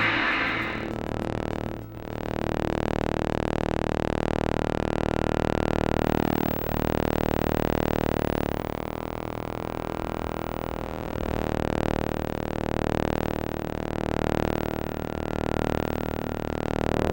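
Lightsaber sound effect: a steady, rich electric hum made from a film projector's motor hum blended with the buzz from the back of a tube television. The pitch sweeps down and back twice, as when the blade is swung. Near the end it swells and fades about once a second. A hiss dies away in the first second.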